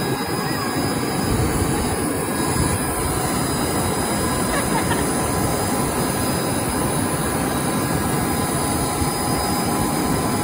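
Steady jet-turbine noise on the airport apron, with a faint high whine held at a constant pitch, and wind rumbling on the microphone.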